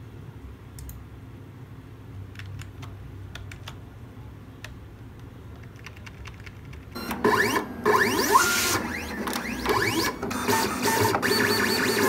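Vinyl cutting plotter cutting a stencil: from about seven seconds in, its motors whine in quick rising and falling glides as the blade carriage darts back and forth, with a busy rattle. Before that there is only a low hum and a few faint clicks.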